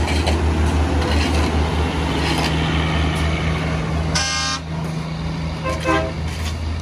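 Heavy diesel dump truck engine pulling uphill with a steady low drone. A short horn toot sounds about four seconds in, and a second, briefer and lower sound follows near six seconds.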